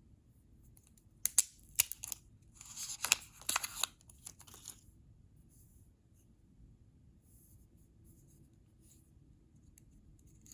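Apple Pencil packaging being opened by hand: two sharp clicks, then a burst of tearing and rustling lasting about a second and a half, then a few faint taps.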